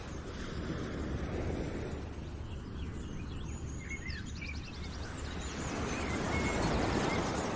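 Outdoor ambience: a steady rushing noise over a low rumble, fading a little in the middle and swelling again near the end, with a few short bird chirps in the middle.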